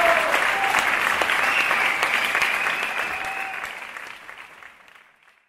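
Audience applauding, with dense clapping that fades out over the last second or so.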